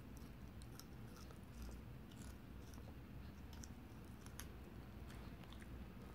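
Teething puppy gnawing a raw carrot held in a hand: faint, irregular crunching and clicks of teeth on the carrot.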